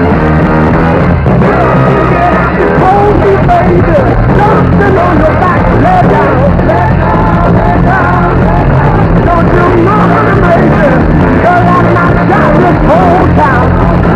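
Loud rock band music: a drum kit playing under a steady bass line and a wavering lead melody.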